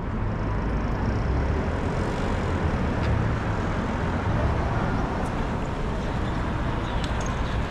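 Steady rumble of road traffic, cars driving past.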